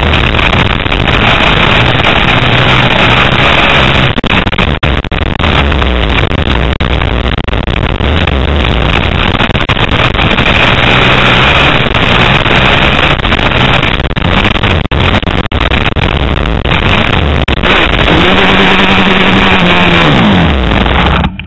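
Motocross bike engine heard from an onboard camera, loud and distorted, with wind rushing over the microphone; the engine note climbs and drops in steps as the throttle opens and closes. Near the end the pitch rises and falls in one clear sweep.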